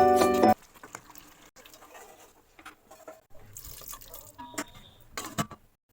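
Background piano music cuts off about half a second in. Then come faint kitchen sounds, small clinks and knocks, with a light wash like running or poured water.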